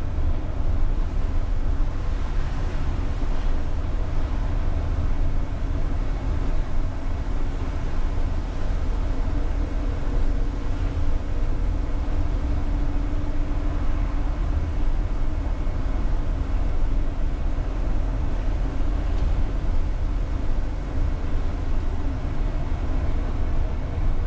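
A UTTZ-6241.01 (MAZ-203T) trolleybus under way, heard from the driver's cab: a steady deep rumble of tyres and body over a rough, snowy road, with faint steady humming tones over it. A low hum comes in for a few seconds around the middle.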